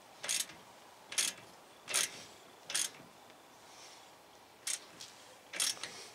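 Ratchet wrench clicking in six short bursts on its return strokes, about one a second with a longer pause in the middle, as it turns the nut of a stud installer that draws a new wheel stud into the hub.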